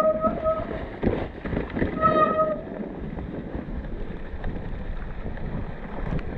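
A steady squeal at a single pitch, stopping less than a second in and sounding again briefly about two seconds in, over a constant low rumbling noise.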